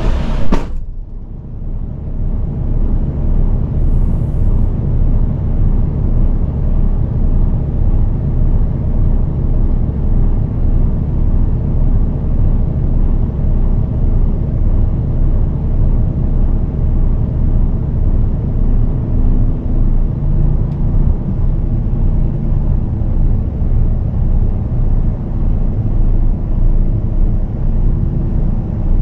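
Mercedes-Benz Actros SLT heavy-haul truck's diesel engine idling, a steady low rumble heard inside the cab.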